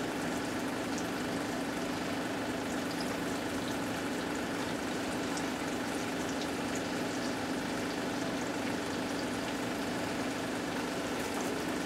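Flour-dredged chicken frying in hot oil in a cast-iron skillet: a steady sizzle and bubbling with scattered small crackles.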